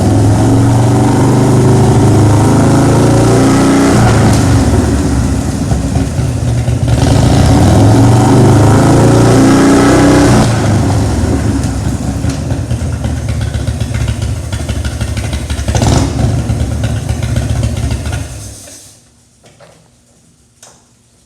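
2002 Big Dog Husky motorcycle's 107-cubic-inch V-twin engine running and being revved, loudest for a few seconds near the middle. It shuts off abruptly near the end, leaving a few faint clicks.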